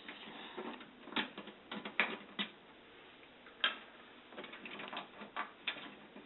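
Irregular light clicks and taps of the support clips being worked loose and pulled out of an overhead projector.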